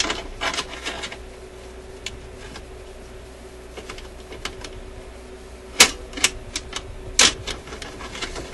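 Metal levers and linkages of a record-changer mechanism clicking as they are moved by hand: a run of light clicks at the start, a quieter spell, then a few sharp clicks past the middle.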